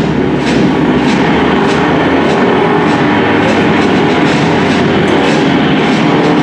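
A rail vehicle rolling along its track: a steady loud rumble with rhythmic clacking of the wheels, two or three clacks a second.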